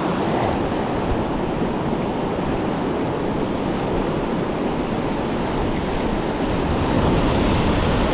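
Sea surf washing steadily against the shore, with wind buffeting the microphone.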